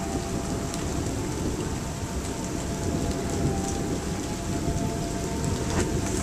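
Steady rain under a low, continuous rumble of thunder, with a few sharp ticks of drops landing close by.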